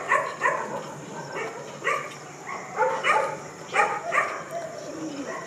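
A dog whining and yipping: a string of short, high cries, each falling in pitch.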